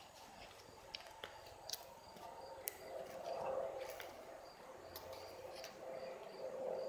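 Faint backyard ambience: a short, high insect-like chirp repeating a few times a second over a low steady hum, with scattered light clicks and rustles as the phone moves through tall grass.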